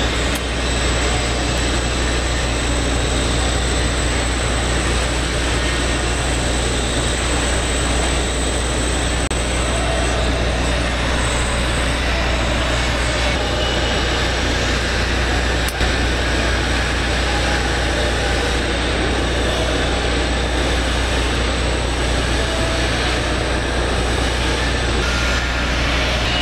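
Steady low hum and hiss of machinery in a fabrication shop, with a TIG torch tack-welding a steel pipe joint.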